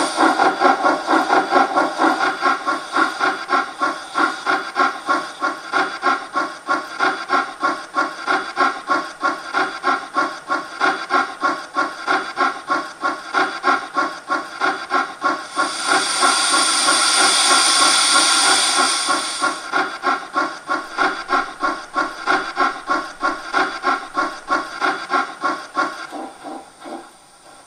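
Digital steam sound from the ESU LokSound decoder of a Gauge 1 BR 52 steam locomotive model: steady exhaust chuffs, about three a second. A few seconds past the middle, a loud hiss of cylinder steam joins the chuffing for about four seconds. Near the end the chuffing fades out.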